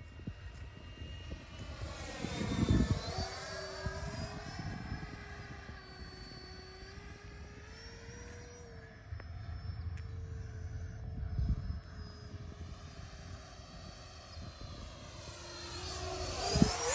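A 70 mm electric ducted-fan RC F-35 jet whines steadily as it flies overhead. It passes close and loudest about three seconds in, with the whine sweeping in pitch as it goes by, then another pass builds near the end.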